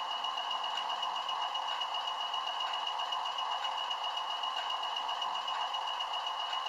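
Model diesel locomotive with a DCC sound decoder running: a steady engine sound from its small onboard speaker, thin and without bass, with a constant high whine over it.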